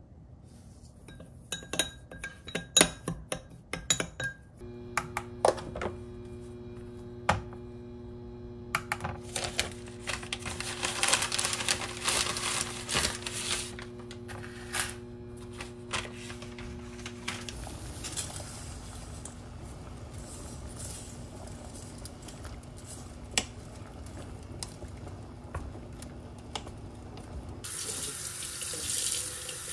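Kitchen work at a sink: dishes and utensils clinking and knocking, with a steady low hum through the middle. Near the end a tap is turned on and runs.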